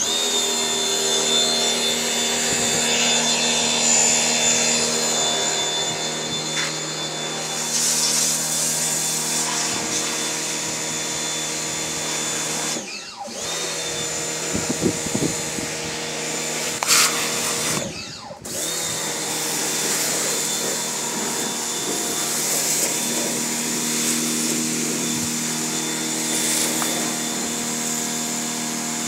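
Pressure washer running steadily: motor hum with the hiss of the water jet spraying the car's bodywork. It cuts out briefly twice, about halfway through.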